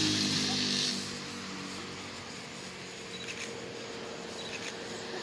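A steady low hum stops about a second in, leaving quiet outdoor background with a few faint, short high chirps.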